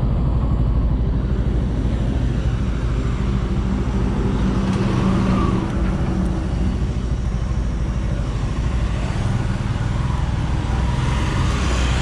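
Motorcycle running at road speed, with a steady low road rumble and traffic noise. An engine tone stands out more clearly for a few seconds in the middle.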